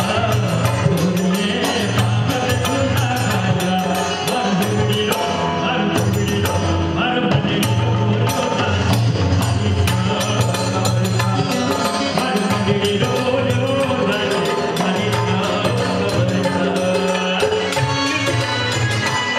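Live band playing a Mayra geet, a traditional wedding song: a male singer into a microphone over dholak drum, keyboard and jingling percussion, with a steady beat.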